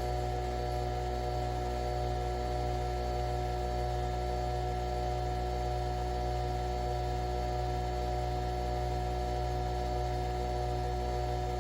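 Steady, unchanging hum made up of several fixed tones over a low drone.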